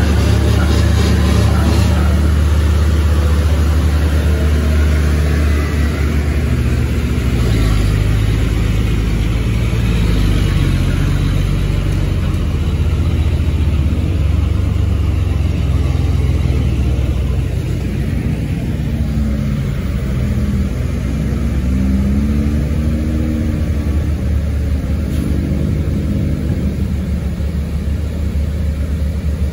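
Heavy diesel truck engines pulling loaded trucks through a steep hairpin bend: a loud, deep, steady engine drone as a truck passes close by. In the second half the engine pitch rises and falls several times.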